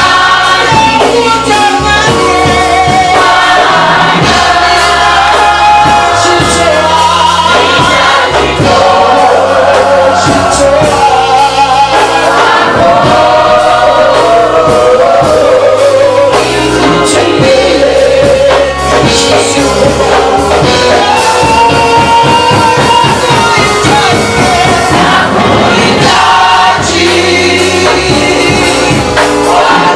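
Live gospel worship music: a choir sings over a band with a bass line, loud and unbroken.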